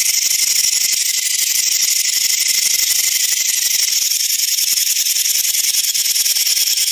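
A snake hissing: one long, unbroken hiss, high and airy with almost nothing in the low end.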